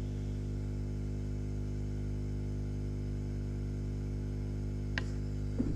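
Steady electrical mains hum and buzz, with a couple of light clicks near the end.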